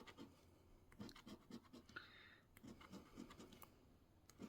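A coin scraping the coating off a scratch-off lottery ticket in faint, quick, short strokes, with brief pauses between runs.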